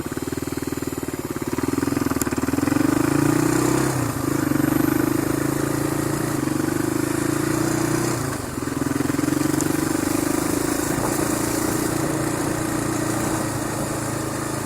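Motorcycle engine pulling away from idle and accelerating, its note dropping in pitch twice, about four and eight seconds in, then running steadily, with wind and road noise.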